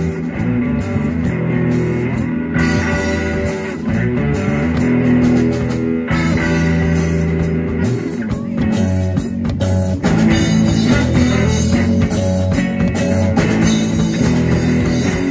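Live amplified rock band playing an instrumental passage: electric guitar, bass guitar, drum kit and keyboard.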